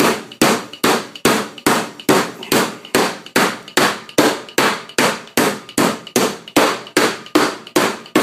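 Metal meat-tenderizing hammer pounding a slice of eye of round steak on a plastic cutting board, tenderizing the meat: a steady run of about twenty evenly spaced blows, about two and a half a second, each a sharp smack with a short ring.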